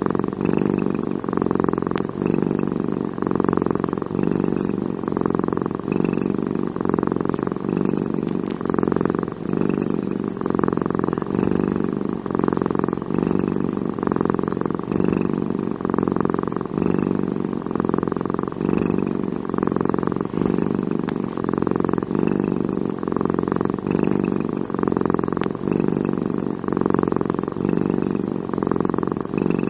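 Domestic cat purring steadily and continuously, swelling and easing about once a second with its breaths.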